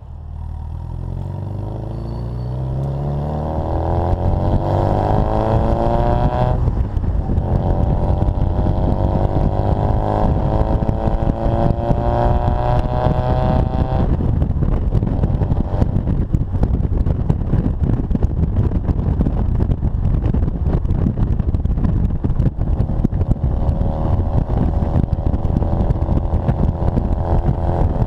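Austin-Healey Bugeye Sprite's 948 cc four-cylinder engine and exhaust pulling hard through the gears. The note rises, drops at a gear change about six seconds in, rises again, and changes gear again about halfway through. It then runs more steadily under wind and road noise, and climbs again near the end.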